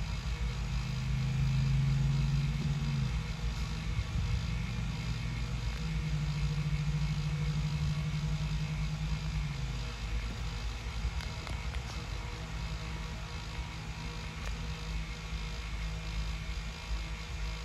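Rebuilt GE C44ACM diesel locomotives running on a test run: a steady low engine hum and rumble that swells twice in the first half, then settles to a quieter drone.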